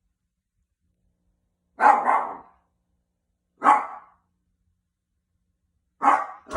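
Cockapoo puppy making short, sudden noises in its sleep: four bursts, the first three about two seconds apart and the last two close together near the end.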